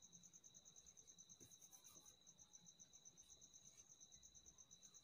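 Near silence: quiet room tone with a faint, steady, high-pitched trill pulsing about eight times a second.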